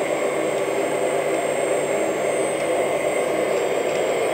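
Hydraulic pump of a 1/14 scale hydraulic RC excavator running steadily, a constant whir with a thin high whine.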